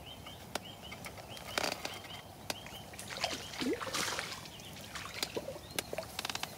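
A small hooked fish splashing at the surface as it is played in on a float rod, with brief splashes about one and a half seconds in and again around the middle. Short bird chirps repeat about three times a second in the first half.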